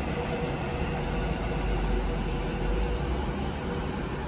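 Class 390 Pendolino electric train running slowly past at the platform: a steady low rumble with a faint constant hum.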